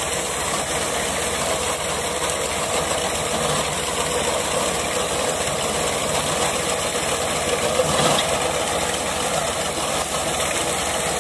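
Tractor diesel engine and rear-mounted reaper running together as the reaper cuts standing wheat: an even, continuous mechanical din.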